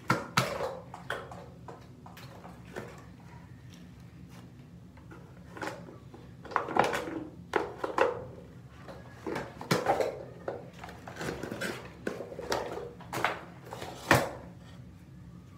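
Makeup items clicking and rattling in a hard makeup case as it is handled and rummaged through, with irregular knocks, the sharpest just after the start and near the end.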